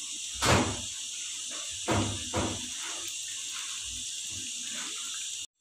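Chicken karahi gravy sizzling steadily in a steel pan, with three soft knocks in the first two and a half seconds.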